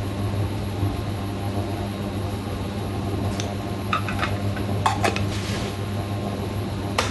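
Steady low electrical hum of a kitchen appliance, with a few light clicks and taps around the middle and one more near the end.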